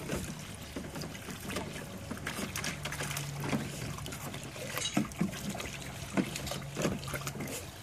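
Water splashing and sloshing in a small pool as a dog chases and snaps at a swimming toy fish, with a low steady hum running underneath that stops near the end.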